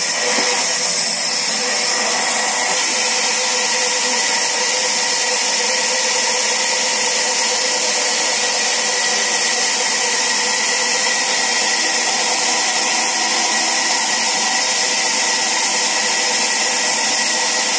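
Sawmill saw running steadily: a loud, unchanging machine hum with even hiss over it, holding the same pitch throughout.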